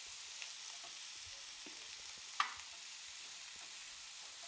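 Strips of carrot, green pepper, green beans and onion sizzling in oil in a frying pan while a spatula stirs them, with light scrapes and one louder knock of the spatula a little past halfway. The vegetables are being stir-fried for a few minutes before the sauces go in.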